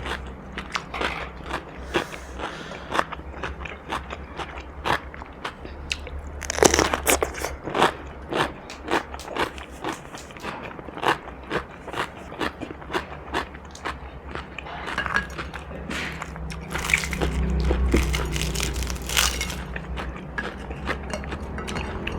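Close-miked chewing of crunchy food, a steady run of sharp crunches with a dense flurry of bites about a third of the way in and louder ones near the end. A low steady hum runs underneath.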